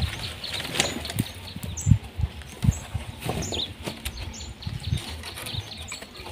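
Wind buffeting the microphone in irregular low thumps, with short high bird chirps now and then in the background.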